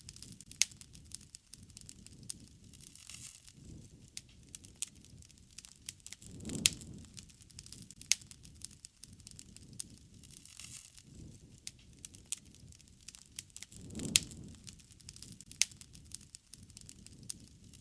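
Wood campfire crackling, with many sharp irregular pops and snaps. A low rushing swell of the flames comes about every seven seconds.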